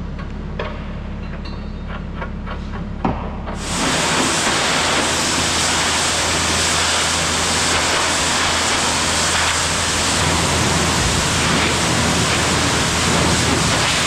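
A steady low hum with a few light clicks. About three and a half seconds in, a loud, steady hiss of a pressure washer spraying water starts abruptly.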